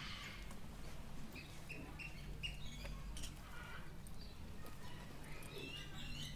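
Birds chirping: a few quick high chirps about two seconds in, then a denser run of repeated chirps building near the end.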